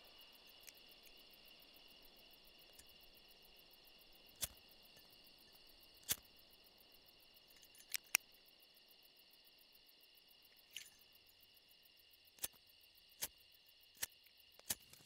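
Faint steady chirring of night insects, broken by about nine sharp metallic clicks from a small object worked in the hands. The clicks are irregularly spaced, some in quick pairs, and come thicker toward the end.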